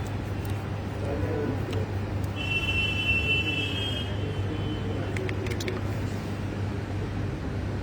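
Steady hiss and low hum of a hot-air rework station blowing on a phone board, with a brief high tone about two and a half seconds in and a few sharp clicks a little past the middle.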